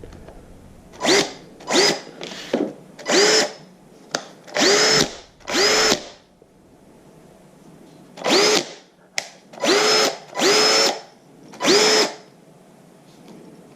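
Greenworks 24 V cordless drill driver run with no load in about ten short trigger pulls. Each pull spins the motor up quickly to a steady whine, which then stops.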